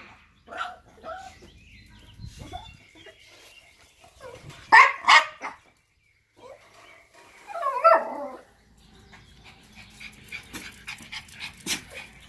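Yorkshire terriers barking in short, scattered bursts, with two loud barks about five seconds in, a longer wavering whine around eight seconds, and small yips near the end.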